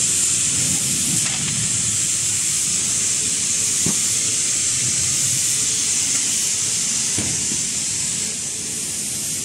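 Steady high-pitched air hiss over a low rumble of running factory packaging machinery, with a couple of faint knocks.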